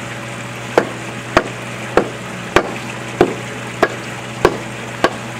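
Hand tamper's steel plate thudding down on a fresh pothole patch of Aquaphalt water-activated asphalt mix, eight even strikes a little over half a second apart, compacting the patch.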